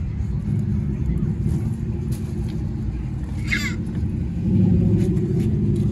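A car engine running with a low, steady rumble that gets louder about four and a half seconds in. A brief high chirp sounds midway.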